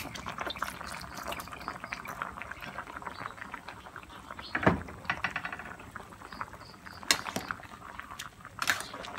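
A pot of moringa-pod curry at a rolling boil, bubbling and popping steadily, with seasoning poured in from a bottle at the start. A sharp knock comes about halfway through, and near the end the ladle knocks and scrapes against the aluminium pot as the curry is stirred.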